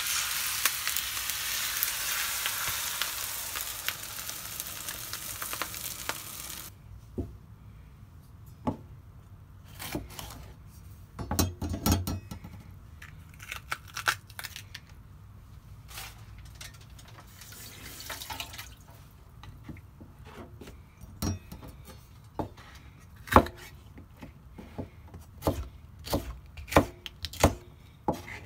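Beaten egg poured onto a very hot iron sizzle platter, sizzling loudly, cut off suddenly about seven seconds in. Then soft handling and tearing as the seeds and stem are pulled out of a green bell pepper, followed near the end by a kitchen knife slicing the pepper on a cutting board, a series of sharp taps.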